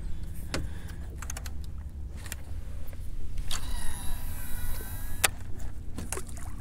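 Baitcasting reel's spool whirring as line pays out on a cast: a high whine of about a second and a half, ending with a sharp click. Scattered clicks of the reel being handled, over a steady low rumble.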